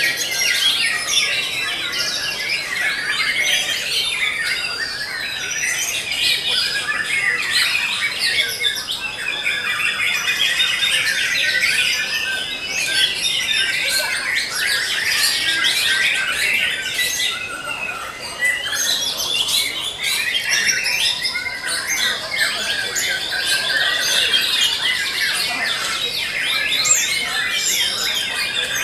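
Many caged songbirds singing at once, such as oriental magpie-robins and white-rumped shamas. Their rapid whistles, trills and chatter overlap without a break.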